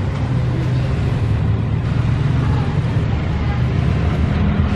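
Diesel-electric locomotive of a KAI passenger train approaching on the track, its engine running with a steady low drone.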